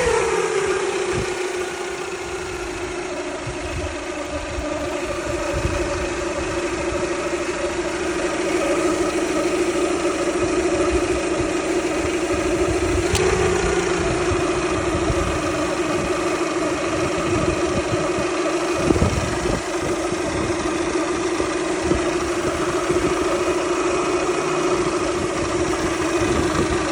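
Toyota Camry 2.2-litre four-cylinder engine idling with a steady whine, the pitch lifting briefly about halfway through as the revs rise. The owner suspects a failing alternator or water pump, though a mechanic called it normal. A single thump about two-thirds of the way through.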